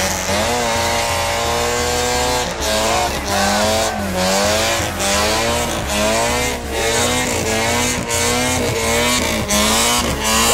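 Honda Civic EX doing a burnout: its tyres squeal with a wavering pitch that rises and falls about twice a second.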